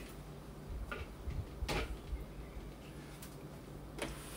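A few light knocks and clicks of kitchen bowls and utensils being handled on a counter, over a low steady hum.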